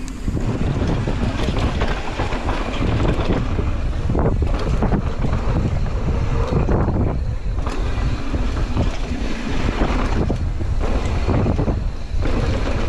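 Mountain bike descending a dirt downhill trail at speed: wind rushing over the camera microphone and tyres rolling over the dirt, with occasional knocks from the bike over bumps.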